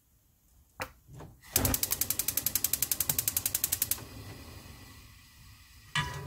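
Gas stove burner's electric igniter clicking rapidly, about ten clicks a second for a couple of seconds, then a faint hiss as the gas burns. A single knock near the end.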